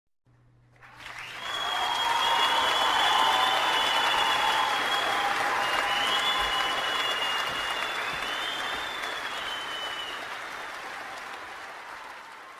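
Crowd applauding, with several long, high whistles over the clapping; it fades in about a second in and slowly fades away toward the end.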